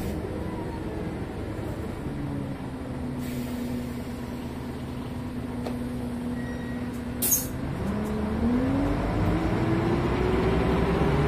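Renault R312 city bus's diesel engine heard from on board: its note drops, holds steady for a few seconds, then climbs steadily near the end. A short, sharp hiss of compressed air comes about seven seconds in.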